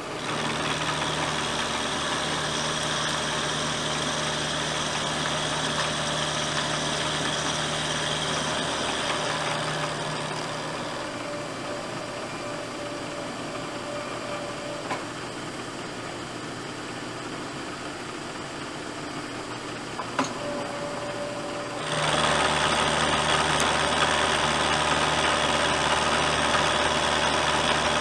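Vertical milling machine with its end mill cutting a flat on a metal part held in a vise: a steady machining noise that is louder for the first ten seconds, drops for a stretch with a couple of small clicks, and grows louder again about 22 seconds in.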